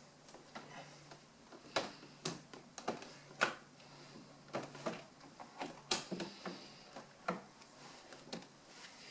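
Irregular knocks and clicks of hard objects being handled and set in place, with a few sharper knocks among lighter taps.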